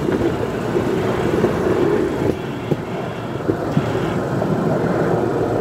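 Motorized rail trolley (motorodillo) running along the track: a steady engine-and-wheel noise with occasional sharp clicks.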